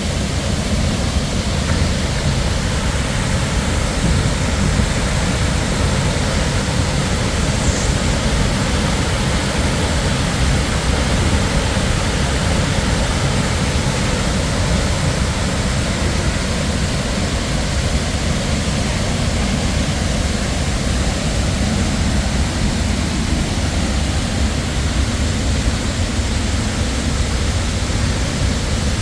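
Waterfall pouring: a loud, steady, unbroken noise of falling water.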